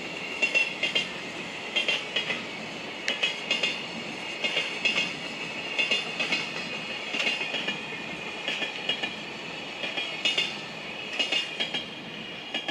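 Freight train container wagons rolling past, their wheels clacking over rail joints in groups of a few clicks about once a second over a steady rumble and rail ring, fading near the end as the last wagons draw away.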